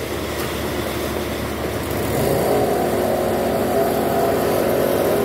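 Concrete mixer truck's diesel engine running while it discharges concrete down its chute. About two seconds in, the engine speeds up and grows louder, then holds at the higher speed.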